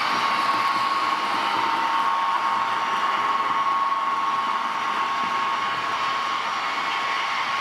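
Model DB V200 diesel locomotive running, its sound decoder playing a steady diesel engine drone with a high whine through the model's small loudspeaker. The whine sinks slightly in pitch over the few seconds.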